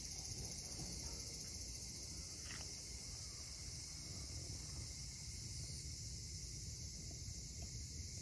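Steady, high-pitched chorus of insects buzzing without a break, over a low background noise.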